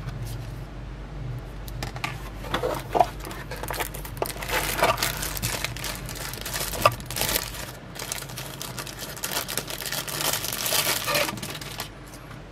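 Thin plastic sleeve crinkling and rustling in irregular crackles as a power bank is handled and slipped out of it, with a couple of sharper snaps.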